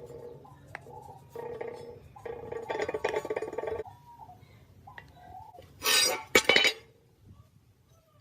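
Metal being worked: a tool hums in short spells, then two loud, harsh metallic scrapes or clatters come about six seconds in.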